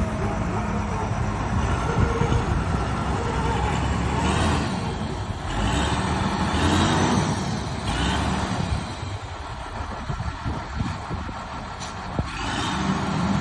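Heavy diesel construction machinery running steadily, with several louder rushing surges through the middle.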